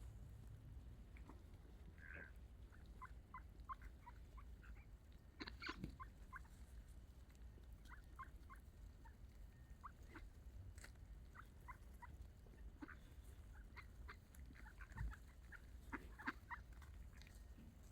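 Ducks calling faintly in a scattered series of short quacks and chatter, over a low background rumble.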